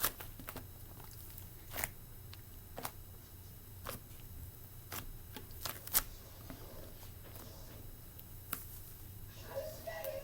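Cloud slime being squished and stretched by hand, with scattered soft clicks and pops, the loudest about six seconds in.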